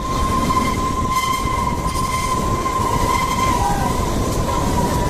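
Kalka–Shimla narrow-gauge toy train running: a steady rumble with a long, unbroken high-pitched tone held over it.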